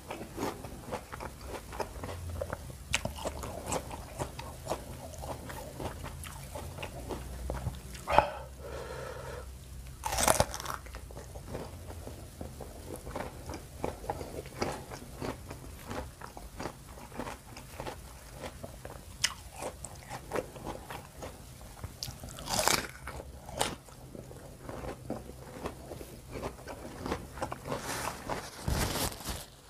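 Crunchy bites into a crisp water apple (jambu air citra), with wet chewing between them, close on a lapel microphone. Several bites stand out louder, about 8 and 10 seconds in, around 23 seconds, and near the end.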